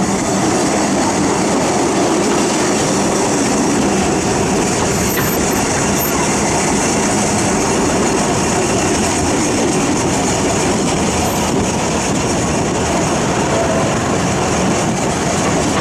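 Narrow-gauge passenger train carriage running along the track, heard from an open window: a steady rumble and clatter of wheels on rail.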